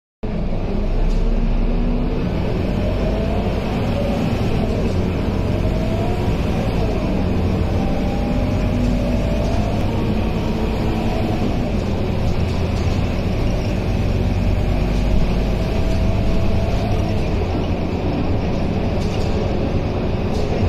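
Scania K230UB bus heard from inside the cabin while driving: the rear-mounted five-cylinder diesel engine running under way over steady road and body noise. A whine rises and falls several times through the ride.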